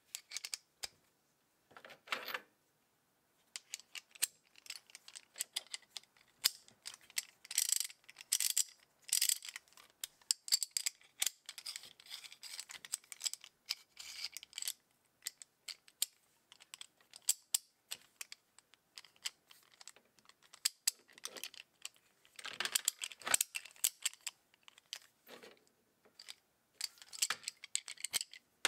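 Vintage Duro hand ratchet wrench being worked by hand, its pawl clicking in several quick runs, with separate metallic clinks of steel sockets being handled and fitted onto its drive.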